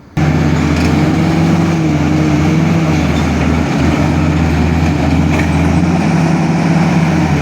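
A heavy diesel engine running loud and steady, cutting in abruptly just after the start.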